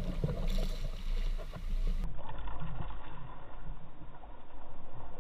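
Fishing kayak on a creek: a low wind rumble on the microphone with scattered small knocks against the plastic hull and gear, then a steady rushing hiss of water and wind.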